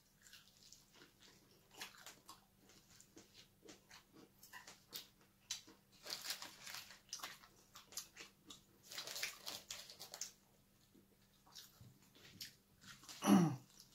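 Close-up eating sounds: biting and chewing crispy fried chicken, with many small crunches and mouth clicks. Two louder crackly stretches come around six and nine seconds in.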